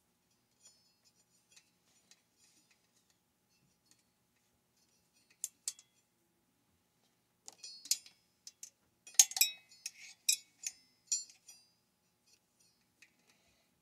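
Light clicks and ticks of fuel line and plastic parts being worked by hand into a Pioneer P40 chainsaw's housing, faint and sparse at first, then a run of sharper clicks in the second half.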